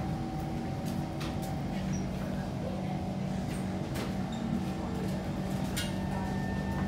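Inside a Kawasaki C151 electric train standing at the platform: the carriage's equipment hums steadily, with scattered clicks and knocks. Near the end a motor whine begins rising in pitch as the train starts to pull away.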